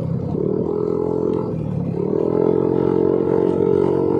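Yamaha NMAX 155 scooter engine pulling under throttle while riding, its pitch climbing shortly after the start and again about two seconds in, then holding steady.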